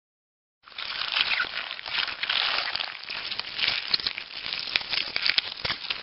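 Crackling, rustling noise full of small rapid clicks, starting abruptly under a second in.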